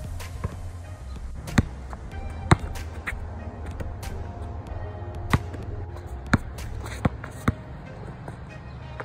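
A basketball bouncing on a hard outdoor court, several sharp single bounces; the last few come closer and closer together, as a ball settling after a drop. Background music with a steady bass runs underneath.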